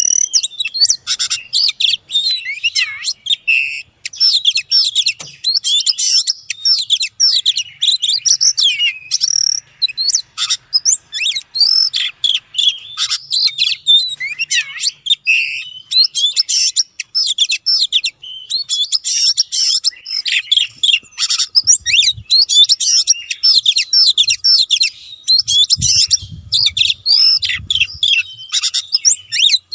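Oriental magpie-robin (kacer) singing without a break: a dense, fast run of varied whistles, chirps and trills.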